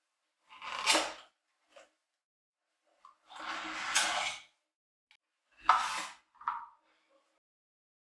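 Plastic vacuum accessory tools being handled in and slid out of their cardboard insert: three scraping, rustling sounds, each under a second long, with a few small ticks between them.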